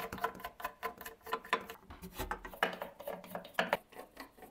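Quick metallic clicks and clinks from handling a welding machine's sheet-metal casing with tools while it is being taken apart.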